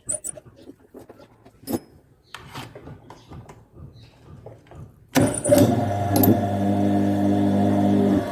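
Washing-machine electric motor switched on about five seconds in, starting up and then running with a steady hum on freshly replaced ball bearings. A sharp click comes about a second after it starts. Before that come scattered light clicks and knocks of handling.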